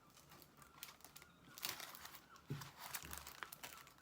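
Plastic-wrapped diamond painting canvases being handled, crinkling and rustling in short irregular bursts.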